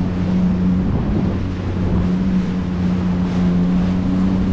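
Small motorboat's engine running with a steady hum, its pitch wavering briefly about a second in, over wind and water noise.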